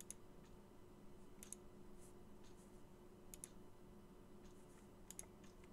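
Near silence: room tone with a low steady hum and four faint double clicks, about one every one and a half to two seconds.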